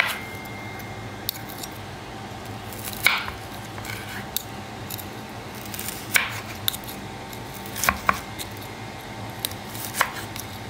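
A knife crunching through the crackling skin of crispy fried pork belly (bagnet) and knocking on a wooden cutting board. There are sharp cracks about every two to three seconds, two close together near the end. A steady low hum sits under them.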